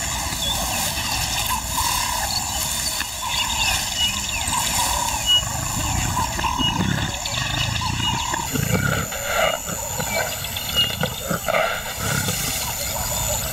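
Lioness roaring, a call to her pride: a run of low grunting pulses that begins about two-thirds of the way in.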